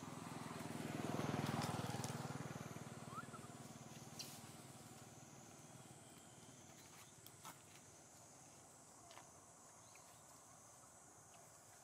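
A motor vehicle passing, its engine noise swelling to a peak about a second and a half in and then fading away over the next few seconds.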